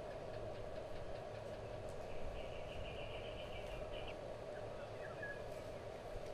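Steady low mechanical hum, with a bird trilling rapidly for about two seconds near the middle and a few short chirps a little later.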